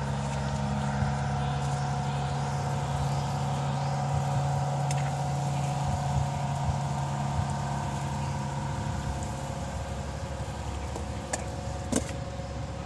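An engine running with a steady hum that fades away over the last few seconds, with two short clicks near the end.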